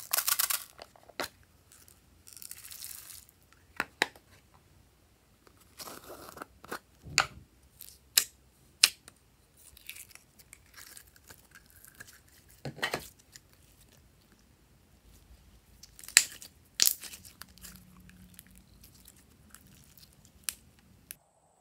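Hands handling plastic slime cases and glossy slime: sharp clicks of plastic lids and cases, with short spells of sticky tearing and crackling as the slime is pulled out and stretched.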